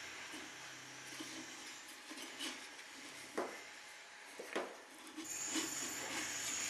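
Light rubbing and handling noises as a new heater wick is worked down around the metal burner tube of a Valor paraffin heater, with two short sharp clicks a little past the middle.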